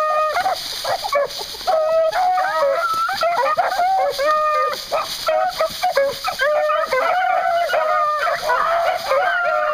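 A pack of beagles baying together as they work a scent with their noses to the ground. Many voices overlap without a break.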